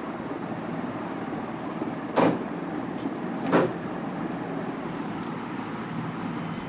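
Steady background hum with two short, sharp knocks, about two seconds in and again a little over a second later.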